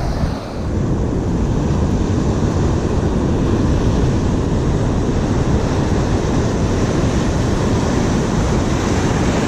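Steady roar of wind buffeting the microphone over the wash of ocean surf on a beach.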